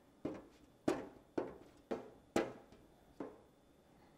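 A white marker tapping and dragging on a clear glass pane as words are written: about six short, sharp taps roughly half a second apart.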